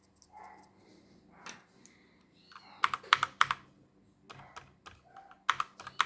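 Keys on a mechanical keyboard with Outemu switches being typed in two quick bursts of sharp clicks, one about three seconds in and one near the end, with a few lighter key presses between.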